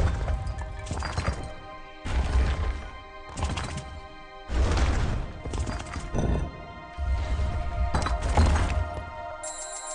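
Online slot game sounds: background music with heavy stone-block thuds and clatter about every two and a half seconds as each spin's blocks land on the grid.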